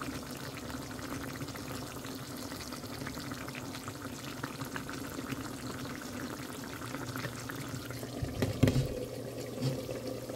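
Flat-bean and eggplant curry simmering and sizzling in a nonstick pan, with a steady low hum underneath. About eight and a half seconds in, a glass lid is set on the pan with a brief clatter, and the simmer sounds more muffled after it.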